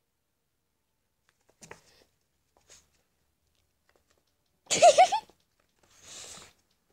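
A small dog at play: a few faint taps, then one short, loud, high-pitched squeak about five seconds in, followed by a softer hiss.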